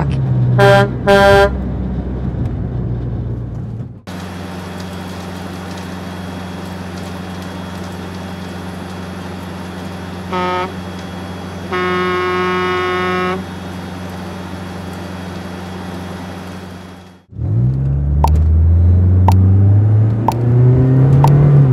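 Concrete mixer truck engine running steadily, with its horn honking: two short honks near the start, then a short honk and a longer blast about ten and twelve seconds in. Near the end it cuts off, and another engine revs up, rising in pitch.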